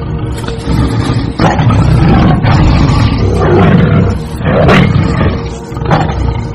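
Tiger roaring and snarling, a run of loud, rough roars that swell and break over several seconds.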